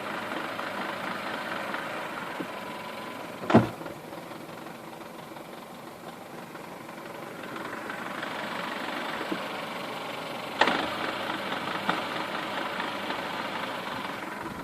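Skoda Octavia A7 idling, with the knock at idle from its manual gearbox. The running noise swells and eases twice. Two loud sharp clicks come about 3.5 and 10.5 seconds in.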